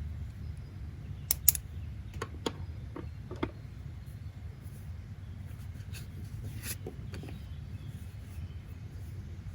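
A steady low rumble of background noise with a handful of sharp clicks and taps, a cluster in the first few seconds and a few more about six to seven seconds in.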